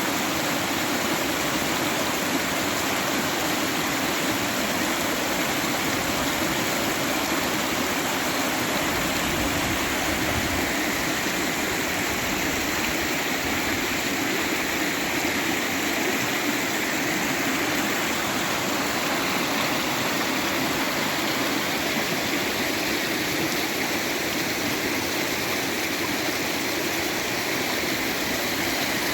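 Water running steadily over rocks in a stream, a constant rushing and splashing.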